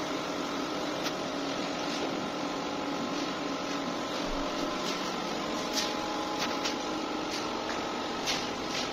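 A steady mechanical hum with a faint whine, with a few short scrapes or taps about a second in, around six seconds and near the end.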